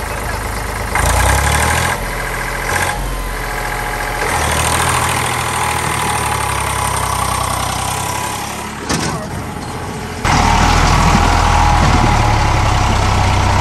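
Eicher 485 tractor's three-cylinder diesel engine running under load as it pulls a seed drill through deep mud and water. The level and pitch jump abruptly several times, loudest from about ten seconds in.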